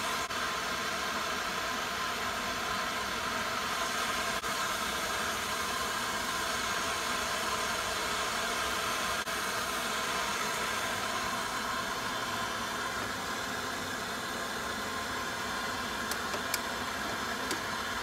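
Handheld gas torch burning with a steady hiss while it heats a connecting rod's small end so that a dry-ice-chilled wrist pin can slide in. A few light metal clicks come near the end.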